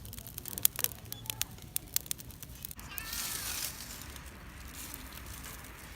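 Wood fire crackling, with sharp pops and snaps through the first half. About three seconds in comes a brief hiss carrying a faint wavering whistle.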